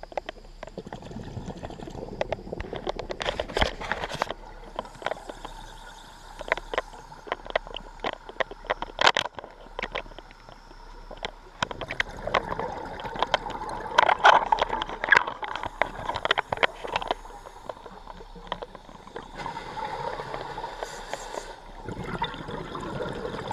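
Scuba regulator breathing heard through an underwater camera housing: hissing inhalations and bursts of gurgling exhaled bubbles, with scattered clicks and knocks.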